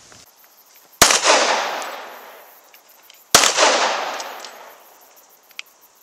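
Two semi-automatic pistol shots about two and a half seconds apart, each a sharp crack followed by a long echo that dies away over a second or two.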